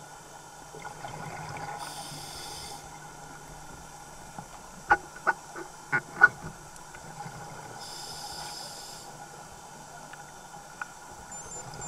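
Scuba diver's regulator breathing, recorded underwater: two hissing inhalations about six seconds apart over a steady low hum, with a quick run of sharp clicks about five seconds in.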